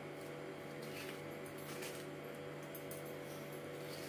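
A steel spoon scraping and scooping soft bael fruit pulp out of its hard shell, a few faint scrapes over a steady low hum.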